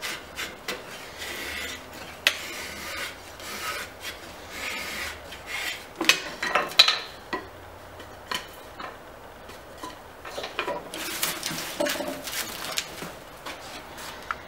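Drawknife shaving a wooden bucket stave: a run of scraping cuts, about one a second. From about six seconds in come sharp knocks and clatter as the wooden stave is handled and set on the bench, with more scraping and clicks near the end.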